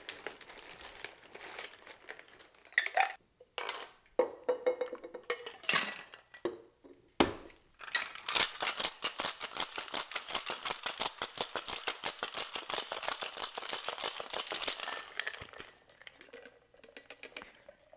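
Large ice cubes clinking as they go into a metal cocktail shaker, then a sharp knock and about seven seconds of hard shaking: ice rattling rapidly against the metal tin.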